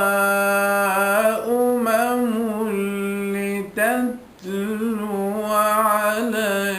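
A male Quran reciter's unamplified voice in melodic tajweed recitation, holding long, ornamented notes with a wavering pitch. The drawn-out phrase breaks briefly about four seconds in, then resumes.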